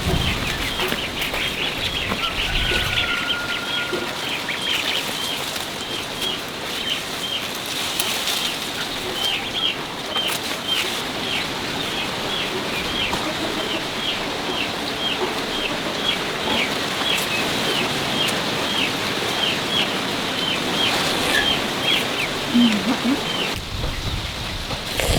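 A bird calling over and over in short falling chirps, about two a second, over a steady background hiss.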